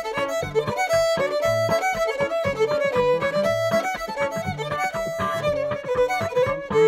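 Instrumental background music: a quick melody of short notes over a moving bass line.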